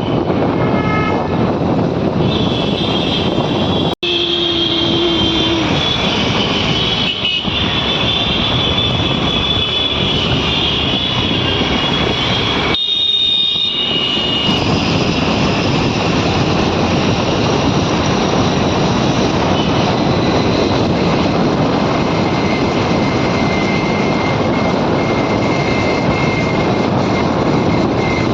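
Loud, steady noise of a moving vehicle, with faint high squealing tones over it. The sound cuts off briefly about four seconds in and changes again about thirteen seconds in.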